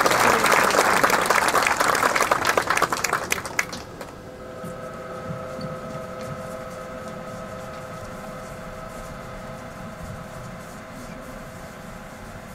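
Audience applauding, dying away about three and a half seconds in. Then a faint steady hum of a few held tones.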